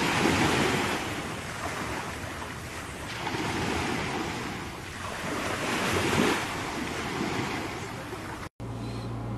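Small waves breaking and washing up on a sandy beach, the surf swelling and falling back every couple of seconds. Near the end it cuts off abruptly to a low steady hum.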